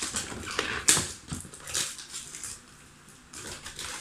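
Hands working on the box packaging: a run of crinkling, scraping rustles of paper and cardboard, loudest about a second in. It goes quieter past the middle, then picks up again near the end.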